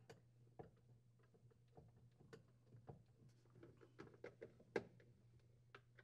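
Faint, irregular clicks and ticks of a hand nut driver turning screws into a refrigerator's plastic control panel, the loudest a little before five seconds in.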